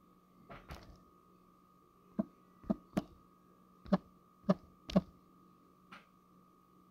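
Fingers tapping on a smartphone's touchscreen while typing, picked up through the phone's own microphone as about nine short, uneven clicks and thunks. A faint steady electrical hum runs underneath.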